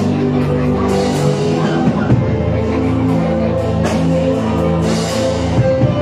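Loud live band music with drums and electric guitar, a steady beat.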